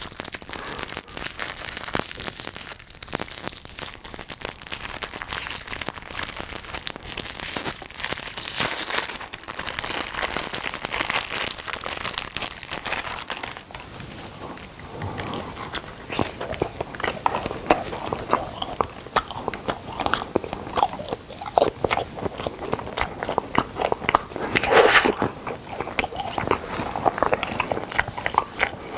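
A wrapper is crinkled and peeled off a small ice cream ball for about the first 13 seconds. Then close-miked biting and chewing into the coated Okdongja milk caramel ice cream, with sharp crunchy clicks.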